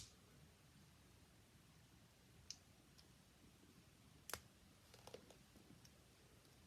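Near silence with a few faint, sharp clicks of plastic Lego pieces being handled, the loudest about four seconds in.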